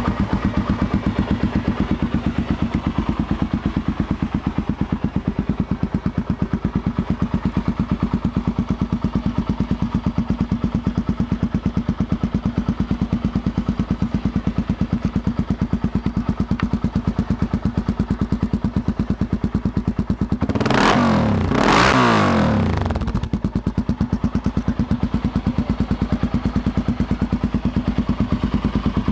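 Honda NX4 Falcon's single-cylinder engine idling with a steady, even beat, blipped twice in quick succession about two-thirds of the way in, each rev rising and falling before it settles back to idle.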